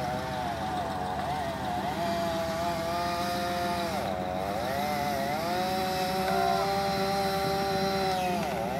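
Two-stroke chainsaw running at high revs in a cut, its pitch wavering and dipping sharply about four seconds in and again near the end, over a steady low engine hum.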